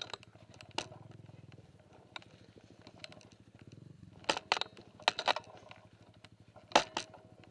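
Single-cylinder dirt bike engine idling with a steady fast pulse. A few sharp knocks and crunches cut across it, clustered around the middle, with the loudest near the end.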